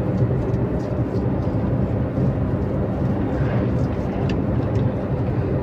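Steady low mechanical hum, like a running engine or motor, with no clear starts or stops.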